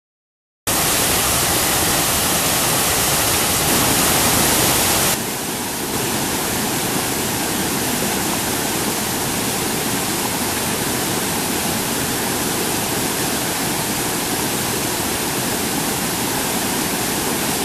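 Steady roar of rushing water from a mountain stream or waterfall. It starts abruptly about a second in and drops a little quieter at about five seconds.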